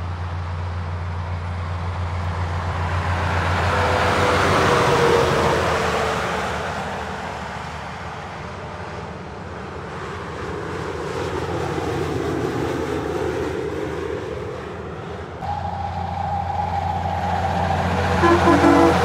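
Semi-trailer trucks passing on a motorway, engine and tyre noise rising and falling as they go by. It peaks about five seconds in, swells again around twelve seconds, and is loudest near the end.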